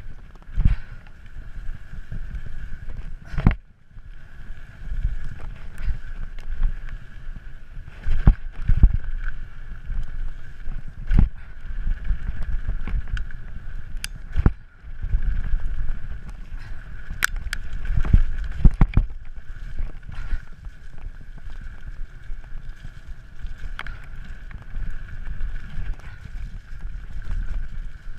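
Mountain bike descending a gravel trail at speed: a steady rumble of tyres on loose gravel with wind on the microphone. Frequent sharp knocks and rattles come from the bike as it hits bumps.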